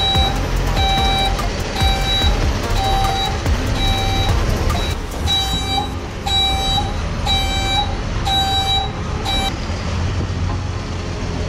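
A truck's reversing alarm beeping about twice a second over a running engine, the beeps stopping near the end.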